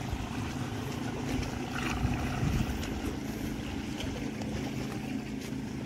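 A small fishing boat's motor running steadily as the boat moves across the harbour, over a wash of wind and waves.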